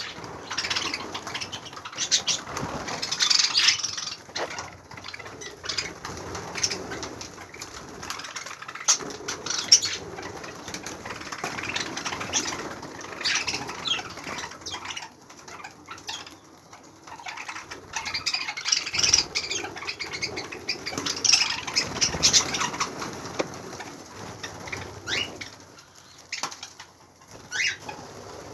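A group of budgerigars chattering and fluttering their wings, a busy irregular mix of short chirps and rustling flaps.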